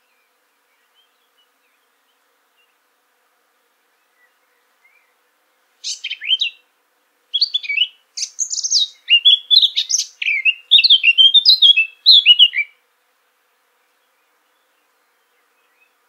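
Blackcap (Sylvia atricapilla) singing a single song that starts about six seconds in: a short opening phrase, a brief pause, then about five seconds of fast, varied warbling that grows louder toward the end before stopping.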